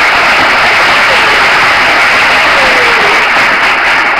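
Recorded crowd applause played as a sound effect from a computer: many hands clapping densely and steadily, loud throughout.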